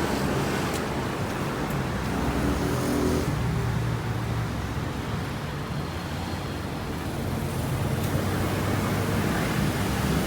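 Steady low rumble of a running motor vehicle, with a faint hum of engine tones underneath.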